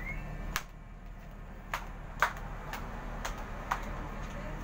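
Steady low engine hum of a ferry running in port, with sharp clicks about twice a second over it.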